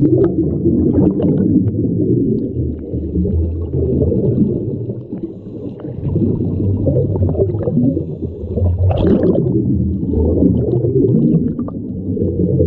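Muffled underwater sound picked up by a GoPro in its waterproof housing while snorkeling: a steady low rumble and swish of moving water, with a brief louder rush about nine seconds in.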